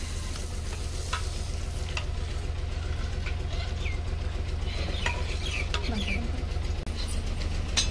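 A steel ladle stirring a curd mixture in an aluminium pot, clinking and scraping against the metal in scattered clicks and short squeaks, over a steady low hum.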